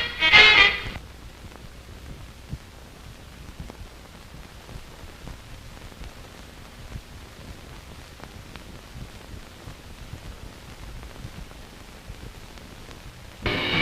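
Upbeat swing music breaks off about a second in, leaving a faint steady hiss with scattered small crackles, the background noise of an old soundtrack, until the music starts up again near the end.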